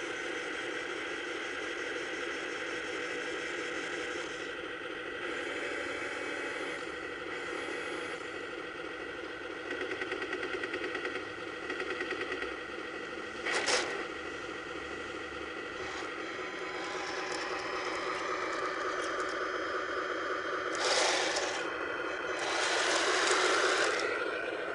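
Toy RC tank's built-in sound unit playing a steady, pitched engine effect over the whirr of its small electric motors. A single sharp crack comes about fourteen seconds in, and two louder, noisy bursts come near the end.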